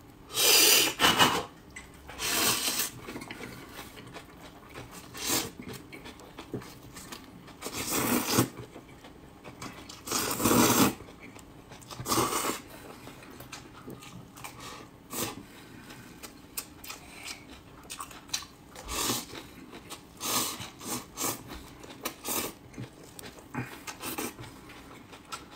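Close-miked eating of a crunchy cold salad of shredded napa cabbage, carrot and glass noodles: steady crisp crunching and chewing with many small clicks, broken by several louder noisy bursts half a second to a second long, most of them in the first half.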